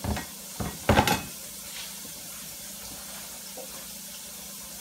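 Steady sizzle of meat frying in a pan, with a few sharp knocks and a short loud clatter of kitchenware about a second in.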